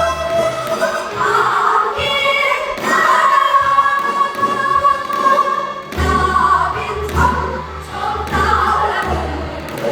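Korean traditional folk singing: voices singing together in long held notes that bend in pitch.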